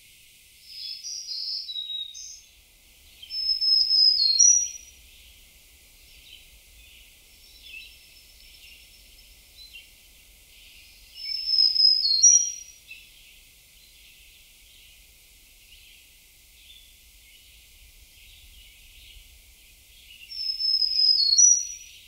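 A songbird singing a short, high phrase of a few quick descending notes, repeated three times about eight seconds apart, with a different short call about a second in. Faint chirping runs underneath.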